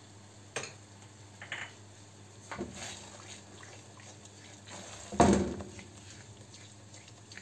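A spatula stirring thick white sauce in a pan, scraping and knocking against the pan in a few separate strokes. The loudest, about two-thirds of the way in, is a sharp knock that rings briefly.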